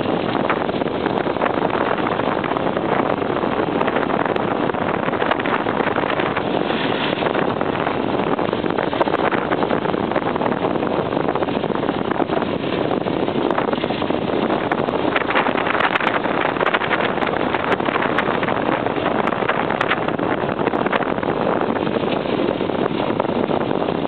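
Vehicle riding fast along a gravel road, heard from on board: a steady rush of wind on the microphone mixed with engine and tyre noise, with scattered small ticks throughout.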